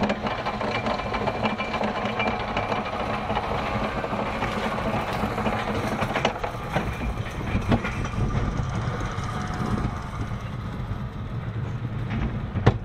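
Roller coaster train being hauled up the chain lift, with the chain rattling and clacking and sharp clicks scattered through a steady low hum. The train then rolls slowly over the crest of the lift hill.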